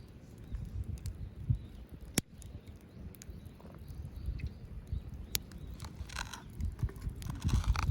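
Small wood fire crackling under a low, uneven rumble, with two sharp pops about two and five seconds in and a scratchy rustle near the end.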